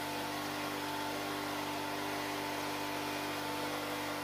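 Tractor-driven wood chipper running at a steady speed: an even mechanical hum over a hiss.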